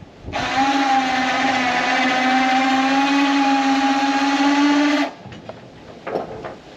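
Electric winch motor running under load with a steady whine for about five seconds, starting and stopping abruptly, as it drags a car by its line.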